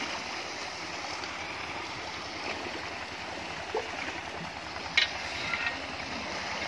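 Water sloshing and churning steadily around cattle wading in a pool, with a brief sharp sound about five seconds in.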